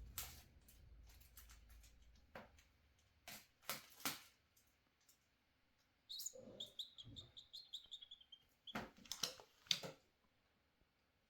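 Scattered light taps and knocks, and about six seconds in a rapid run of short high chirps, slightly falling in pitch, lasting about two and a half seconds.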